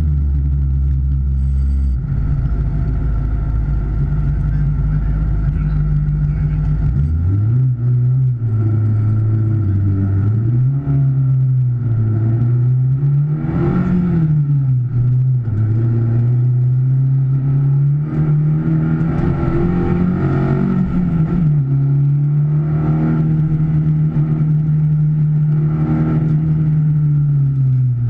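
Stock car engine heard from inside the cabin, holding a steady low note for the first several seconds, then revving up and dropping back several times as the car accelerates.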